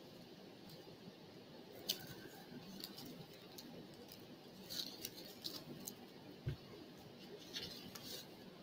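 Faint, irregular clicks and soft rustles over low room noise, with one sharper click about two seconds in.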